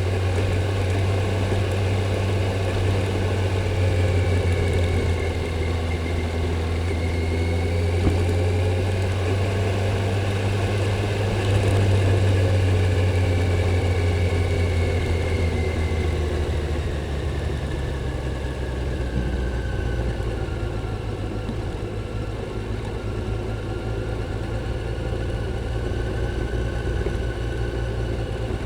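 Kawasaki Z900's inline-four engine on its stock exhaust running under way, holding a steady note with slow small rises and falls in pitch. A bit over halfway through the note drops lower and gets slightly quieter, as the throttle eases off.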